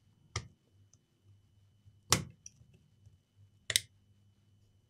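Three short, sharp clicks, about a second and a half apart, from a test probe and fingers working on a laptop motherboard, over a faint steady hum.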